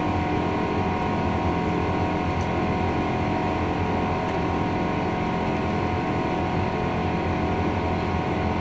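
Steady drone of a jet airliner's engines and airflow heard inside the passenger cabin during the climb after take-off: an even rumble with a few steady tones held above it.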